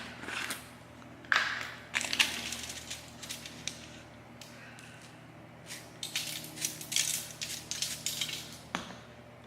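Irregular crinkling, rattling and tapping as crushed red pepper flakes are got out and sprinkled onto a naan pizza, in three bouts: at the start, from about a second in to near the middle, and again toward the end.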